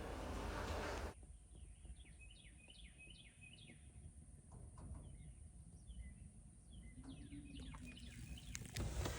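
Small birds chirping faintly outdoors: runs of short, quickly repeated chirps, one run about two seconds in and another near the end. A steady rushing hiss, like wind on the microphone, cuts off about a second in.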